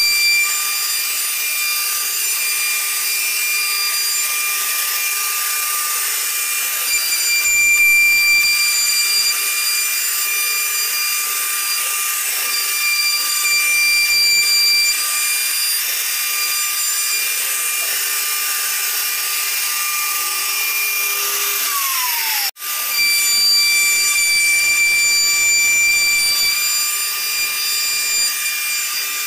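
CNC router spindle running at a steady high-pitched whine while its bit routes grooves into a wooden door panel, with the hiss of the cut. About two-thirds of the way through, the whine drops in pitch and cuts out for an instant, then resumes.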